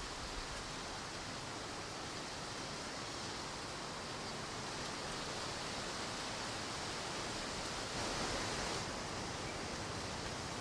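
Steady soft outdoor ambient noise, an even hiss with no distinct events, a little louder for about a second some eight seconds in.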